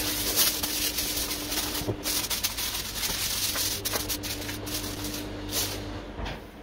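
Aluminium foil crinkling and crackling as it is pulled over a glass baking dish and pressed down around its edges.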